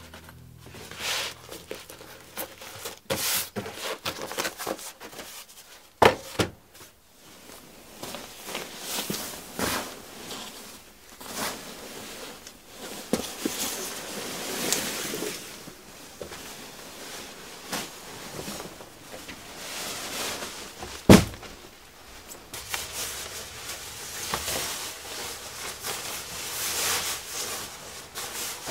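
Gear and clothing being handled: fabric rustling and scattered knocks, with two sharp loud thuds, a double one about six seconds in and a single one about twenty-one seconds in.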